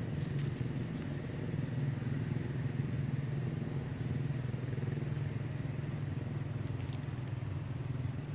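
A motor vehicle engine running with a steady low drone that holds the same pitch and level throughout.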